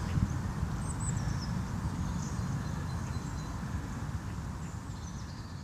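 Outdoor ambience: a steady low rumble with faint, thin bird chirps high above it, slowly fading toward the end.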